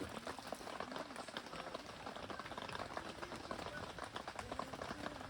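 Pot of hot-pot broth bubbling hard on the boil after the meat goes in, a steady dense bubbling and crackling.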